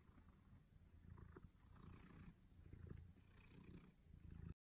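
Cat purring faintly, a low rumble rising and falling in slow waves, cut off suddenly near the end.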